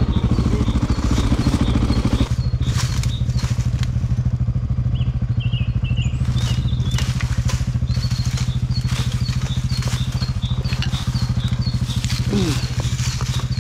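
Dirt bike engine running steadily at low revs, its note dropping a little about two seconds in, as the bike creeps over dry bamboo leaves and stalks that crackle and snap under the tyres through the second half.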